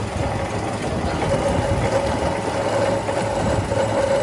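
Milling machine running steadily, a constant mid-pitched hum over a low rumble.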